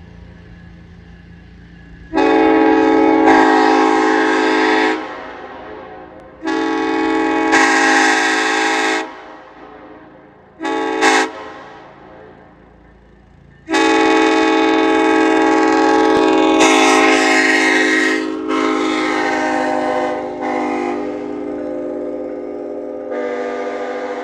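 Nathan K5HLA hybrid five-chime locomotive air horn (bells 1L, 1, 2, 3A, 4) sounding its chord. It gives two blasts of about three seconds each, then a short toot, then one long blast held for over ten seconds whose loudness sags in steps toward the end. Each blast dies away with an echo.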